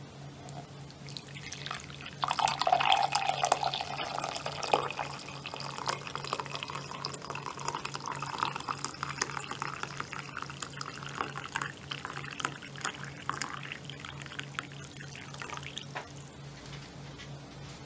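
Water running and splashing, with many small drips, over a steady low hum. Loudest a couple of seconds in, fading off near the end.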